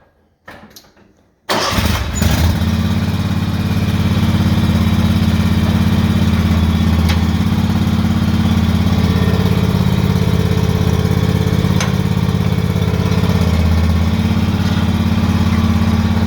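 John Deere X580 lawn tractor's V-twin engine starting about a second and a half in, then running steadily.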